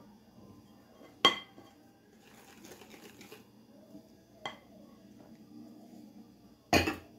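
Kitchenware clinking against a glass mixing bowl as flour is tipped into chocolate cake batter and stirred with a wire whisk. There are two sharp clinks, about a second in and midway, and a louder knock near the end, with faint soft scraping between.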